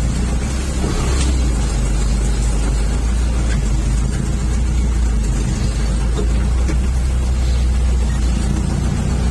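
Diesel engine of a Toyota FJ40 running with a steady low drone, with a few light knocks over it.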